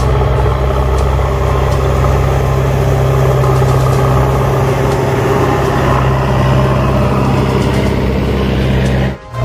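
Diesel engine of a backhoe loader running steadily as it pushes snow with its front bucket. There is a short dip just before the end.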